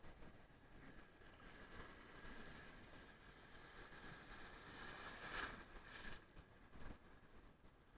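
Near silence: a faint, steady outdoor background hiss, with two soft knocks about five and a half and seven seconds in.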